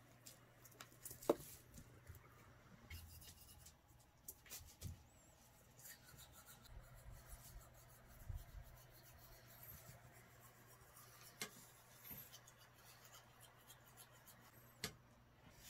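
Cat batting and pawing a toy mouse: faint scratching and rustling of paws and claws on a wooden floor and a sheet of bubble wrap, with scattered light taps, the sharpest about a second in and another near the end.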